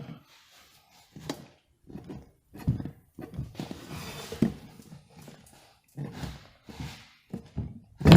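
Irregular knocks, clicks and scraping as a screwdriver pry bar levers a lawn mower tire's rubber bead over the wheel rim, with one loud knock near the end.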